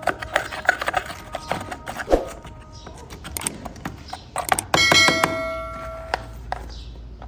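Small hard objects being handled, with a quick run of clicks and taps. About two-thirds in, a sharp metallic strike rings with a bright, bell-like tone that fades over a second or two.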